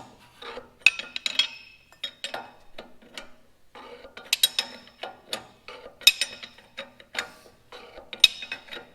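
Box-end wrench clinking on metal as a nut is tightened on a tractor's fan mounting, a sharp metallic clink about once a second.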